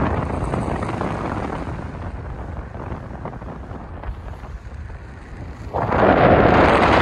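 Wind rushing over the microphone in paragliding flight, a low rumbling buffeting that eases through the middle and surges louder about six seconds in.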